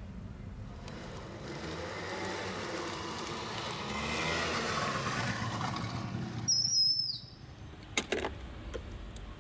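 Vehicle noise swells and fades. About two-thirds of the way in comes a short high squeal that glides down, then a few sharp clicks near the end.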